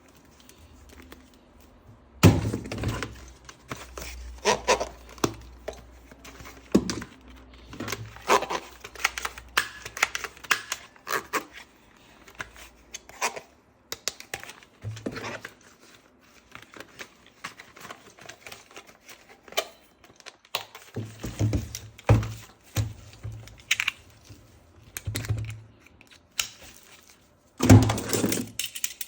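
Hands handling plastic toy parts and packaging: irregular clicks, knocks and crinkling, with a louder thunk about two seconds in and another near the end.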